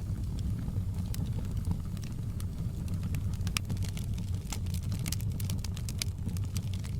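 Open log fire in a fireplace, crackling: many short sharp pops and snaps over a low steady rumble of the burning. The pops come thickest about five to six seconds in.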